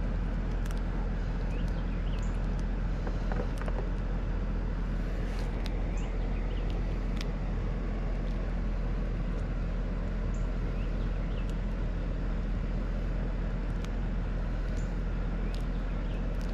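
Steady mechanical hum at an even level, with a few faint light clicks scattered through it.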